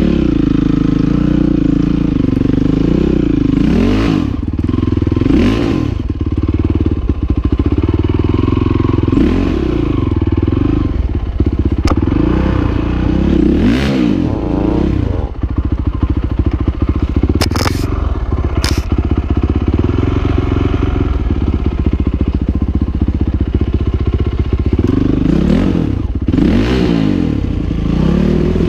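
Honda CRF450R's single-cylinder four-stroke engine working hard up a rocky climb, its revs rising and falling again and again as the throttle is worked. The bike clatters over the rocks, with a couple of sharp knocks about two-thirds of the way through.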